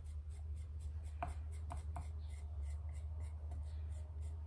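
Wooden modelling tool scraping and rubbing soft grogged stoneware clay while blending the seam at the base of a slab-built cup, with a few light clicks about a second in, over a steady low hum.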